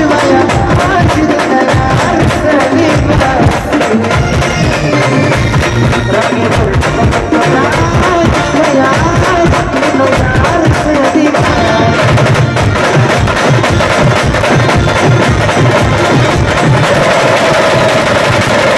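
Loud band music playing an Adivasi folk tune: fast, dense drumming under a melody line.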